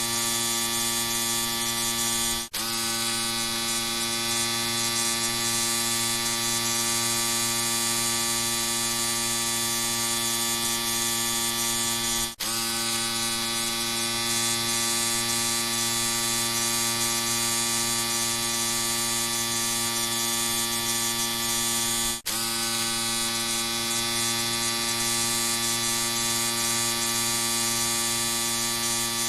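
Electric shaver running with a steady, even buzz. It drops out for an instant three times, about ten seconds apart.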